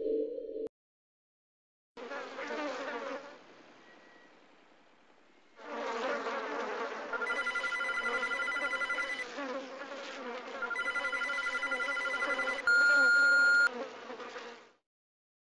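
Buzzing that stops and starts. Twice it is overlaid by a pulsed electronic ringing, and near the end by a loud steady beep about a second long.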